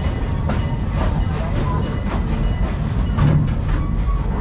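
Serengeti Express park train rolling along its track, heard from aboard: a steady rumble with faint scattered clicks from the wheels on the rails.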